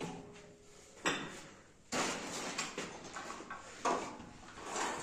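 Cable machine being worked through reps: the weight stack and cable clank and rasp with each pull, several sudden metallic knocks and one longer scraping run.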